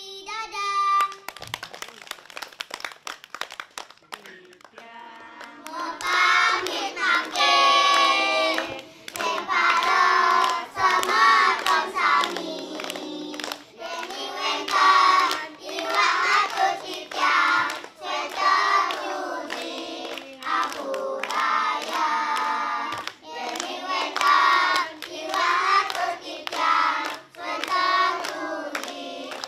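A group of young children singing together and clapping their hands. The first few seconds are quick handclaps alone. The singing starts about six seconds in, and the claps carry on through it.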